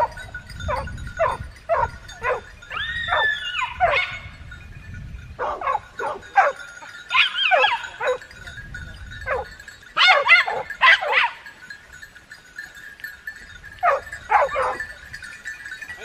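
Hunting dogs barking and yelping in quick runs of short barks, with longer, wavering yelps about three, seven and eleven seconds in and a short lull around twelve seconds.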